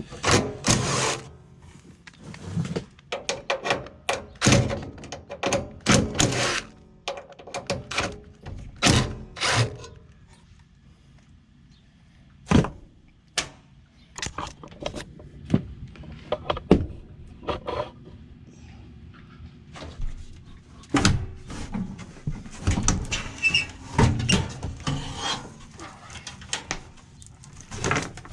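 Irregular knocks, clunks and scrapes of metal parts and tools being handled while an HVAC blower motor is swapped, with a quieter stretch about ten seconds in.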